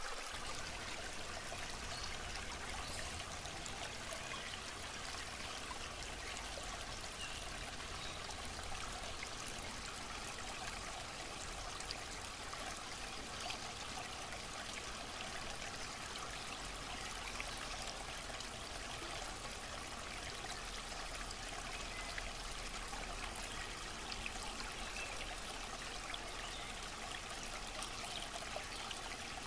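Water running and trickling steadily, with small splashes.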